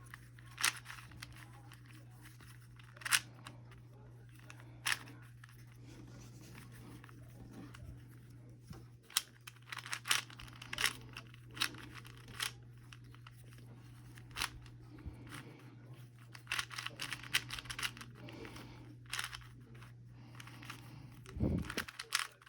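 Plastic puzzle cube being twisted by hand: scattered clicks and short rattling clacks as its layers turn, over a steady low hum.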